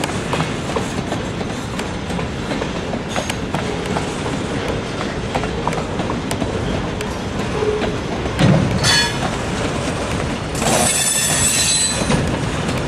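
Freight cars rolling past, their steel wheels clicking over the rail joints. A high-pitched wheel squeal rises briefly about eight and a half seconds in and again for about a second and a half near the end.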